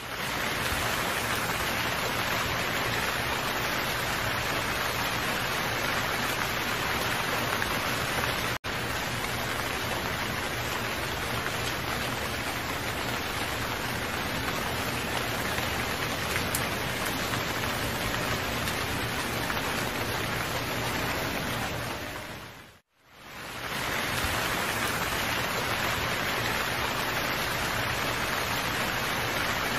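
Steady rain falling, an even hiss of many drops. It cuts out for an instant about eight and a half seconds in. It fades down to silence about 23 seconds in and quickly fades back up.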